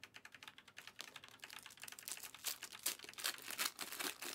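Typing on a computer keyboard: a run of rapid, irregular key clicks.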